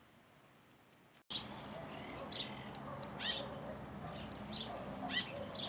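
Faint background for about a second, then birds calling: short high chirps about every half second, mixed with lower short notes.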